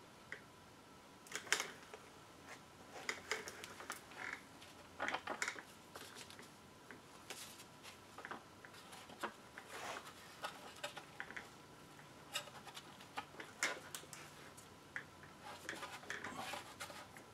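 Gloved hands working a rubber timing belt onto the cam sprockets and pulleys of a stopped engine: scattered small clicks, rustles and light knocks, coming irregularly.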